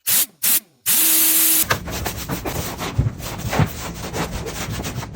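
Two short noisy bursts and a steady hiss, then quick repeated rubbing strokes with a few louder knocks, as in scrubbing a surface during car detailing.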